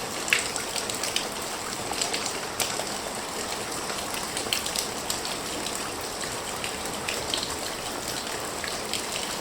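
Soft rain falling steadily: an even hiss with many light drops pattering, a few sharper individual drip ticks standing out now and then.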